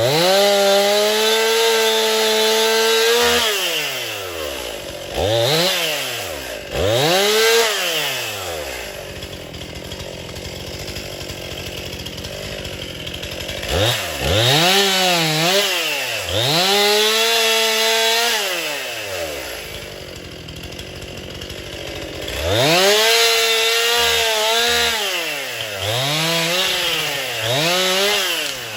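Two-stroke chainsaw cutting storm-downed wood. It runs at full throttle for about three seconds, then revs up and falls back again and again. It drops to a lower idle twice between bursts.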